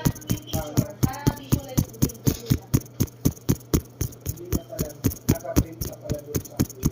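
Background music with a fast, steady percussive beat of about four strokes a second and a few short melodic phrases over it.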